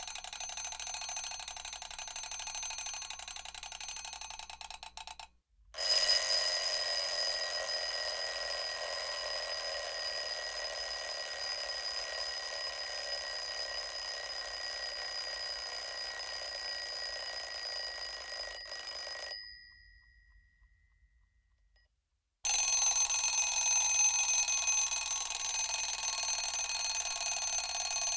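Mechanical bell alarm clock ringing, its hammer rattling rapidly against the bells. Three separate rings: the first stops about five seconds in, the loudest one starts right after and fades out near twenty seconds, and after a short silence a third ring starts.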